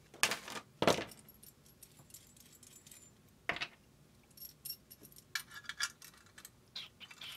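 Small steel parts clinking and rattling: a metal conduit cable connector handled and fitted into a steel electrical box. A few sharp clinks come in the first second and another about three and a half seconds in, then quicker runs of light metallic clicks.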